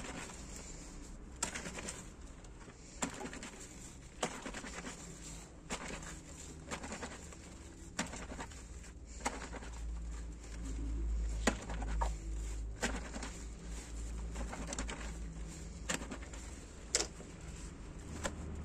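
A soapy cloth diaper being scrubbed and squeezed by hand in a laundry sink: irregular wet slaps and squelches of the lathered fabric. A pigeon coos in the background.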